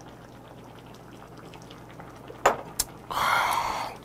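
Two sharp knocks as the small metal soju cup is set down on the wooden table, then a loud slurp of gamjatang broth from a wooden spoon lasting under a second, over the low steady simmer of the pot on its burner.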